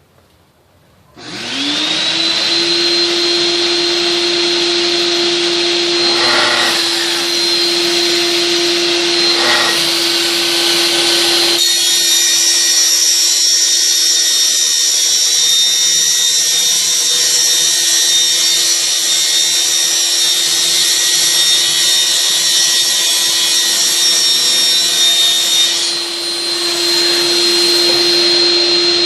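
Plunge circular saw starting about a second in, spinning up and then running steadily while making a shallow 2 mm scoring pass through an MDF board. Its sound changes around twelve seconds in and returns to the earlier sound near the end.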